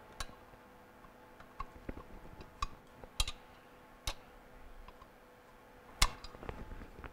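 Scattered metallic clicks and taps of a screwdriver working the screws out of a Bell & Gossett Series 100 pump motor's metal bracket, irregularly spaced, with one louder knock about six seconds in.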